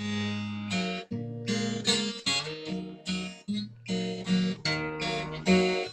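Acoustic guitar strummed in a steady rhythm of chords, playing the instrumental introduction to a song.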